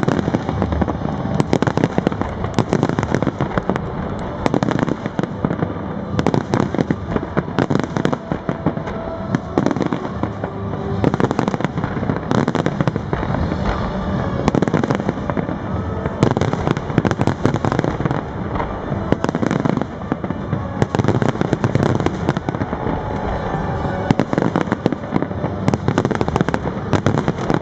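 Large aerial fireworks display: a dense, unbroken barrage of shell bursts, many bangs overlapping one another.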